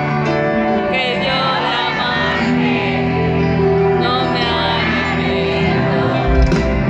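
Live pop band playing a ballad with singing, heard through a large concert sound system from far back in the crowd.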